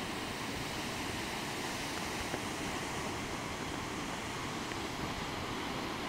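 Steady rush of the Lower Duden waterfall, a cascade of about 50 m, falling off a cliff straight into the sea.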